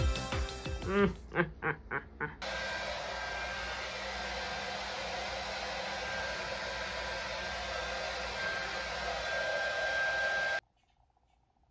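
Background music fades away over the first two seconds. Then a steady rushing noise with a thin high whistle in it starts abruptly and cuts off suddenly near the end.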